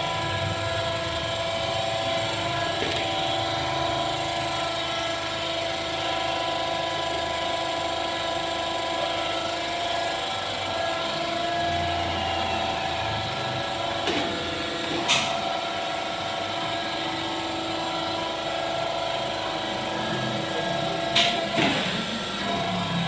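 High-frequency (HF) embossing machine for seat upholstery running with a steady hum of several constant tones. Two sharp clicks come partway through and near the end.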